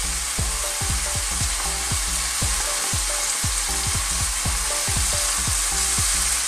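Minced chicken sizzling in hot oil as it is added to a frying pan of sautéed garlic, onion and tomato and stirred in with a spatula: a steady frying hiss.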